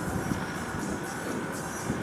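A Cessna 172's single four-cylinder piston engine and propeller droning steadily as the plane climbs away after takeoff, with a low rumble under it.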